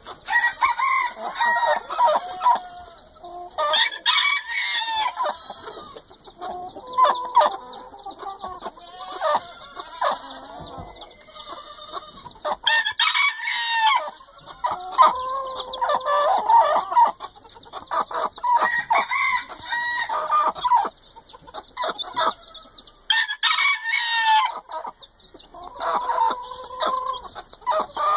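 Chickens calling and clucking, with long loud calls repeating every few seconds, from a mother hen with chicks and the chicken beside her.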